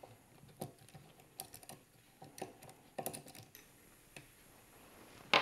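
Soft, scattered clicks and light taps from handling a 3018 CNC router's Z-axis assembly by hand: pliers gripping the shaft while the lead screw is turned out of its coupling nut. Some clicks come in small quick clusters, around three seconds in.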